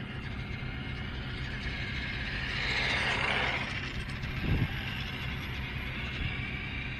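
Wind buffeting the microphone in a steady low rumble. A 3D-printed Tarmo4 RC car drives past with a whoosh that swells about three seconds in and drops in pitch as it moves away. A short thump follows about a second later.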